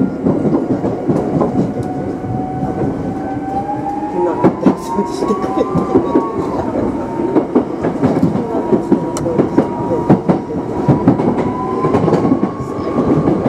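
Electric train's traction motors whining under power as it accelerates, the pitch climbing, with a brief surge and drop about five seconds in, typical of the wheels spinning on snowy rails. Wheels clatter over the rail joints throughout.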